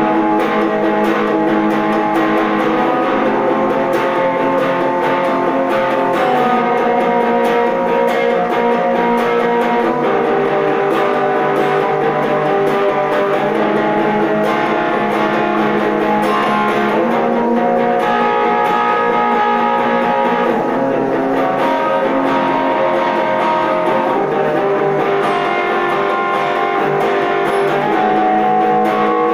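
Electric guitar played slowly, with held chords and single notes ringing and changing every second or two.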